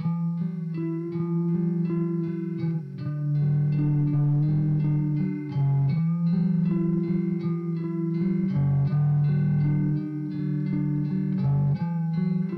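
Electric guitar played through a Hungry Robot Wardenclyffe lo-fi effects pedal, switched on: held notes and chords that change every second or so.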